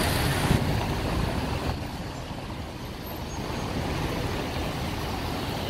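Steady city traffic noise: a constant low rumble with a fainter hiss above it.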